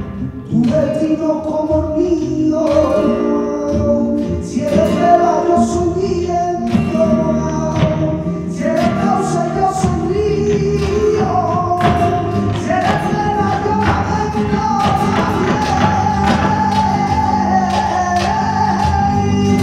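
Live flamenco music: a male singer holding long, wavering sung lines over flamenco guitar and bass, with frequent sharp strikes from hand claps and the dancer's heelwork on the stage.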